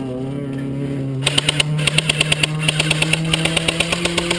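Airsoft electric AK (Beta Project Magpul Tactical AK) firing on full auto: a rapid, even stream of shots starting about a second in and running to the end. A steady motor-like hum that rises slightly in pitch near the start runs underneath.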